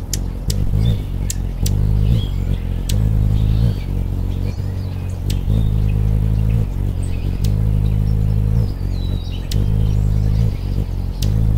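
Anna's hummingbird wingbeat hum, a low buzz at about 50 to 60 wingbeats a second, coming and going in stretches of about a second as the bird hovers. Scattered sharp clicks and faint chirps sound above it.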